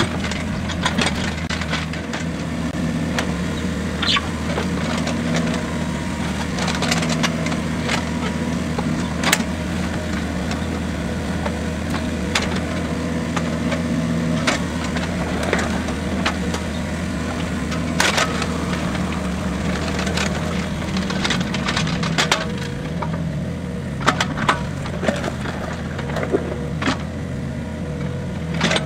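Compact tracked excavator's diesel engine running steadily under load while its bucket scrapes and digs through muck and debris, with sharp clacks and cracks scattered throughout and coming more often near the end.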